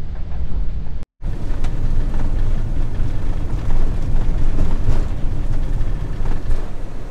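Steady road and wind noise of a panel-van camper driving, cut off for a moment about a second in.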